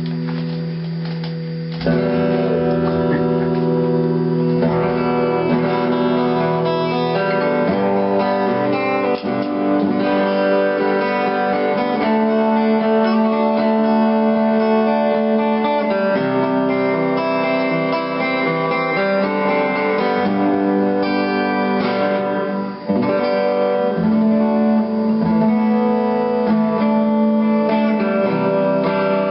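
SG2000-style solid-body electric guitar strumming ringing chords that change every second or two, quieter at first and fuller from about two seconds in.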